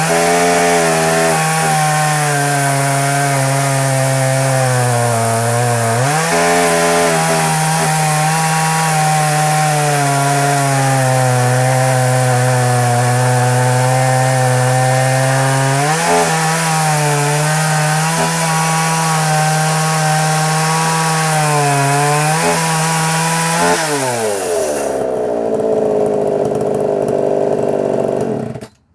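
1987 Craftsman 3.7 (Poulan 3700) 60cc two-stroke chainsaw running at full throttle while cutting through a large log, its pitch dipping and picking up a few times under the load. Near the end the revs fall away toward idle, and then the sound cuts off suddenly.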